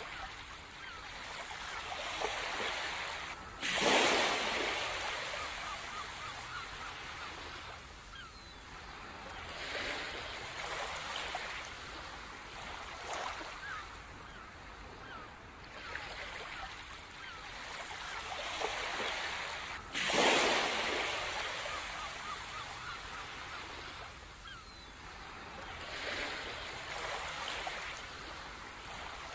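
Ocean surf on a beach: waves swelling and ebbing every few seconds, with two louder breaking crashes, about four seconds in and about twenty seconds in, that die away slowly.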